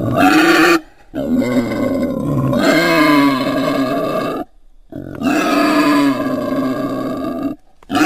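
Invented Ankylosaurus vocalisation sound effect: long, low animal calls with a steady pitch, each lasting one to three seconds, broken by short silences about a second in, just past halfway, and near the end.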